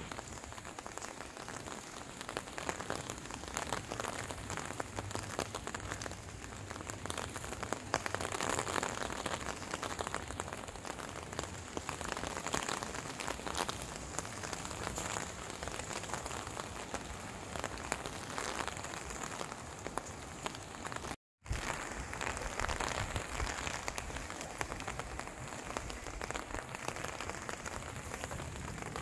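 Steady rain falling, a dense hiss of many small drop hits. It cuts out for a split second about two-thirds of the way through.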